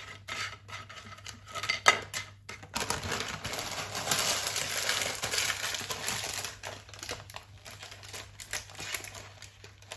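Kitchen handling noises: a few clicks and knocks of dishes or utensils, then a few seconds of dense hissing or crinkling noise from about three seconds in that dies away by about seven seconds, followed by quieter odd clicks.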